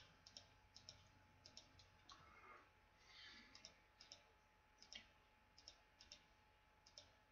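Faint computer mouse clicks at irregular intervals, many in quick pairs, as points are placed one after another to trace a line in mapping software.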